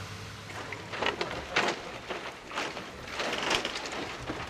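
A handful of irregular scuffs and knocks at uneven spacing, about one a second.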